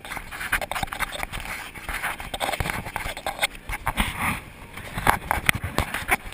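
Handling noise from the camera being gripped and moved: a run of irregular knocks, taps and rubbing against the camera, with the loudest knocks near the end.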